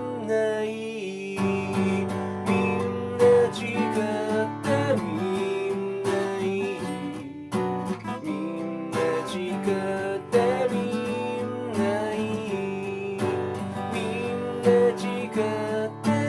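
Acoustic guitar strummed and picked, playing the instrumental close of a song with no words sung.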